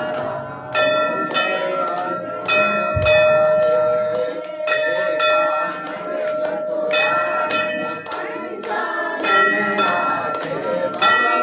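Brass temple bell rung repeatedly during aarti, with strike after strike and its ringing overlapping, over voices singing.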